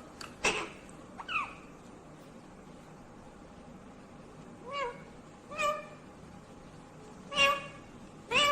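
Ringneck parrot (rose-ringed parakeet) calling in short, sharp pitched squawks. Two calls come in the first second or so, the second sliding up then down; after a pause of about three seconds, four more calls follow roughly a second apart.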